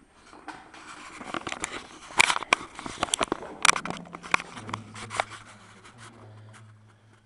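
Handling noise of a camera being moved about close to the microphone: rustling and scraping with many sharp clicks. A low steady hum comes in about four and a half seconds in.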